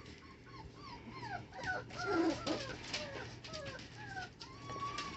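Corgi puppies whimpering: many short, high cries sliding up and down, with one longer whine near the end. Light clicks and rustles of paws on the newspaper floor run beneath.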